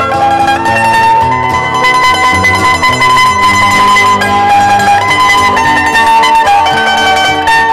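Background music: a melody on a plucked string instrument over a bass line.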